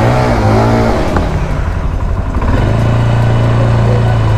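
Engine of a 176 cc GA200 ATV running while being ridden, its pitch swinging up and down in the first second or so, then settling into a steady low drone.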